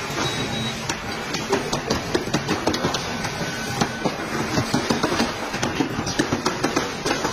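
Assembly-line clatter: rapid, irregular clicks and knocks of plastic bumper parts being handled and clipped together, over steady factory background noise.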